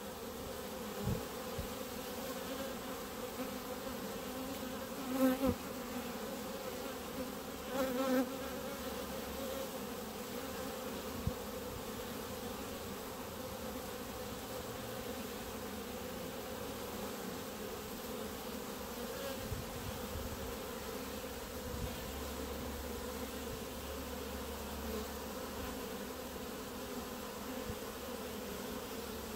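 Honeybees at a hive entrance buzzing in a steady hum, swelling briefly louder twice, about five and eight seconds in.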